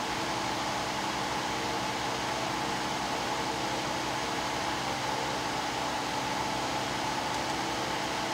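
Steady whir of an electric fan running, with a faint high-pitched whine over it.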